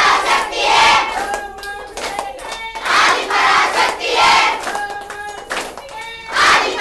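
A group of women clapping their hands in rhythm together while chanting a devotional bhajan in unison, the claps coming in loud clusters between held sung notes.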